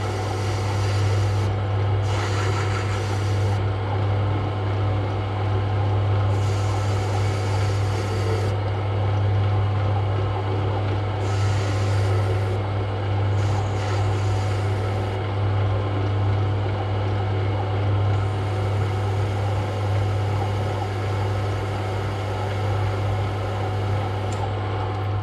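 Metal lathe running with its chuck spinning, a steady low hum throughout. A hiss comes and goes several times as the tool takes light finishing cuts on the metal workpiece.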